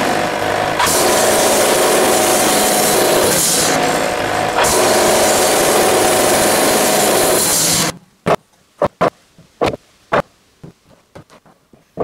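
Wood-Mizer portable bandsaw mill running and its band blade sawing through a white oak log: a loud steady engine-and-blade noise with a steady hum, dipping briefly twice. About eight seconds in it cuts off suddenly, leaving near quiet broken by a handful of sharp knocks.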